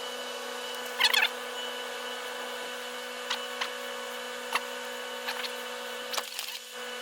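Light clicks and taps of a small metal fitting and its rubber seal being handled, the sharpest about a second in, over a steady low electrical hum.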